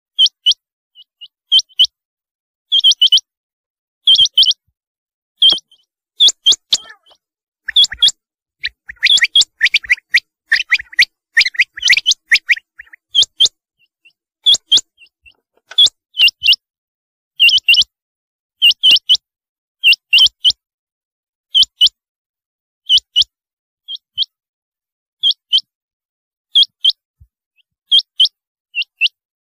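Rain quail calling: short, sharp, high double notes repeated about once a second. A busier flurry of lower notes runs through the middle.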